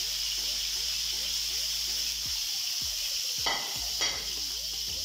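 Minced-meat kebabs sizzling steadily as they shallow-fry in hot oil in a pan. Two brief knocks come a little past halfway.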